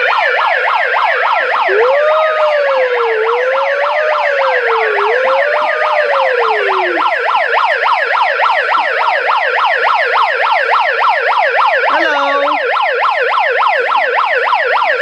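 A loud electronic toy siren running in a fast yelp, its pitch sweeping up and down several times a second without pause. A slower wavering tone rises and falls over it for a few seconds.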